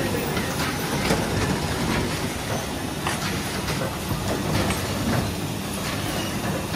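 Nebiolo printing press running, a steady mechanical clatter with light clicks through it.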